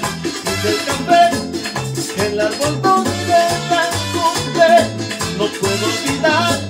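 Instrumental passage of merengue music: a repeating bass line, a shaker in the percussion, and a melodic lead line above.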